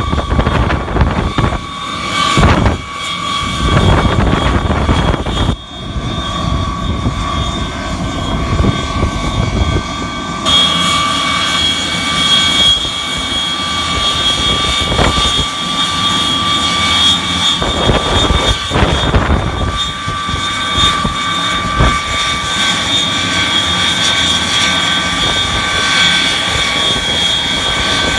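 Rail de-icing machine running along frozen tracks, a loud, steady mechanical drone with a high whine. Wind gusts buffet the microphone over the first few seconds and again past the middle.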